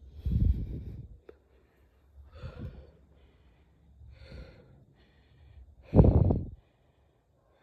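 A person breathing hard and out of breath from exertion: four heavy exhales or sighs about two seconds apart, the last one the loudest.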